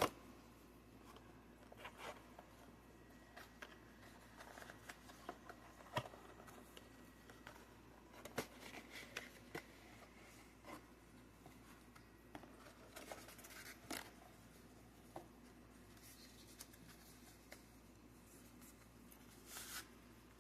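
Quiet handling of a trading-card product box: faint, scattered clicks, scrapes and rustles of cardboard and plastic packaging being opened.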